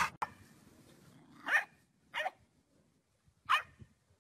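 Dog barking: three short, sharp barks spread over about two seconds, each rising slightly in pitch. A louder dog vocalisation is cut off at the very start.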